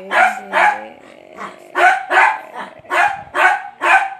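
Small long-haired dog barking in a quick run of short, yappy barks, two to three a second, with a brief pause about a second in.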